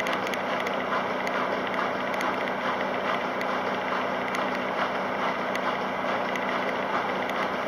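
Kelvinator K605 top-loading washing machine running mid-cycle: a steady motor hum under a continuous churning, swishing noise.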